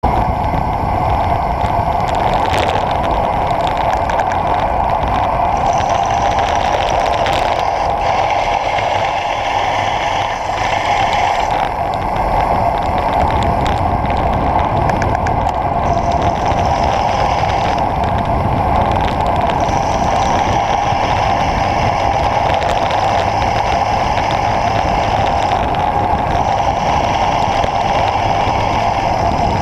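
Steady rush of wind and tyre noise picked up by a camera mounted on the handlebars of a road bike descending at speed, with a higher hiss that comes and goes in stretches of a few seconds.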